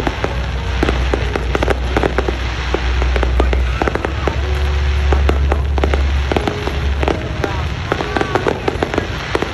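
Fireworks display: a dense, continuous crackling of many small sharp pops, over a steady low rumble.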